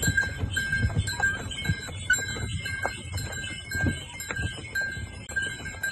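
Small bells hung on a flock of goats, clinking and ringing as the animals move, with one high bell tone coming back about twice a second over scattered knocks.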